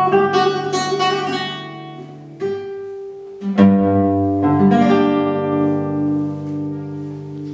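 Nylon-string classical guitar played solo: a quick run of plucked notes that fades, then two full chords struck about a second apart and left ringing as the closing chords of the piece.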